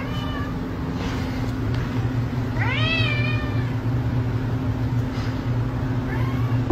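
Domestic cat meowing three times; the middle meow is the loudest and longest. A steady low hum runs underneath.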